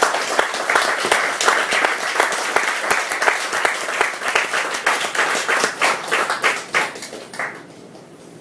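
A small audience applauding: many hands clapping, thinning out and dying away about seven and a half seconds in.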